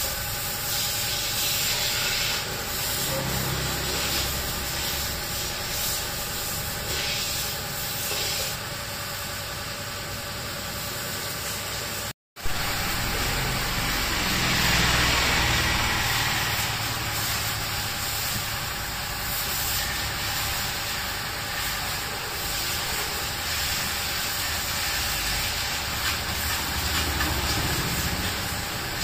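High-pressure washer jet hissing as it sprays water onto a scooter's wheel and underbody, over a steady machine hum. It is louder for a few seconds about halfway through and drops out once for a split second.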